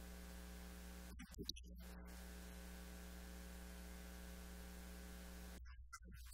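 Faint, steady electrical mains hum with a buzzing stack of overtones. The buzz briefly drops out about a second in, with a small click, and again near the end, while the low hum carries on.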